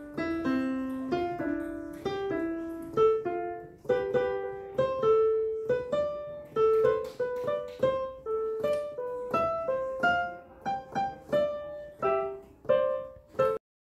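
Background piano music: a melody of single struck notes, each fading after it is played, that cuts off abruptly near the end.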